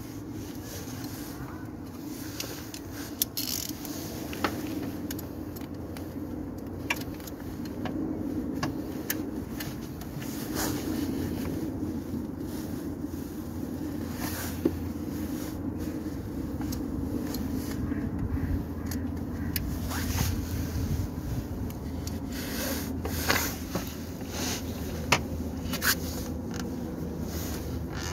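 Scraping, rubbing and scattered sharp clicks of hands and tools working in a car's engine bay, over a steady low hum.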